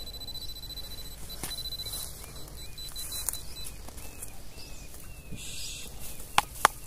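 Digging by hand in a hole in soil: soft scraping and rustling with scattered small knocks, and two sharp loud knocks near the end. A steady high-pitched tone sounds through the first half and then stops.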